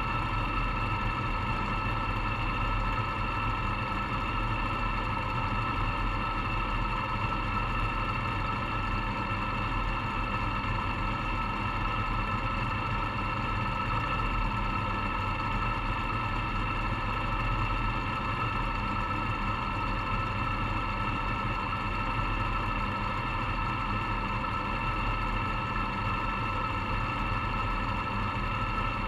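Modified race car's engine idling steadily with no revving, heard from inside the cockpit.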